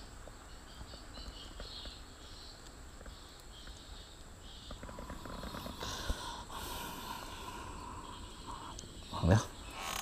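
Quiet riverside ambience with faint high chirping in the background. A short, louder low thump comes near the end.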